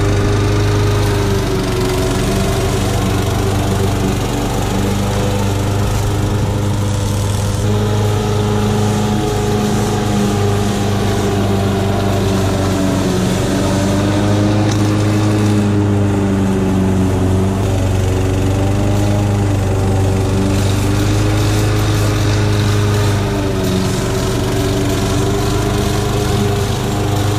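Gasoline walk-behind push mower engine running steadily close by while cutting tall, overgrown grass. Its pitch sags slightly and recovers a few times under the load.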